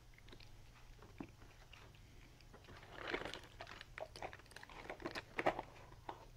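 Kitten crunching Dreamies cat treats: a run of irregular crunches starting a little before halfway through.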